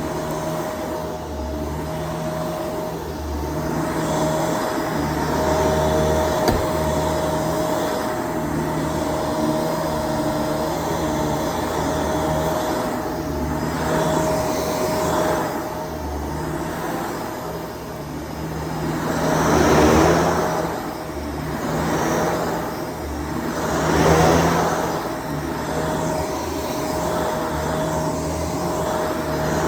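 Shark DuoClean PowerFins vacuum cleaner running, its motor holding a steady whine under a rushing airflow noise, with two louder swells of rushing about two-thirds of the way in.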